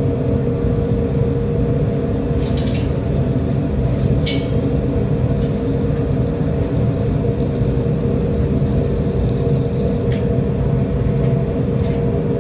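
Steady low mechanical hum with a held tone, broken by a few sharp clicks.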